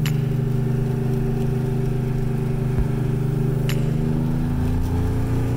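Car engine running at a steady speed, its pitch rising slightly near the end.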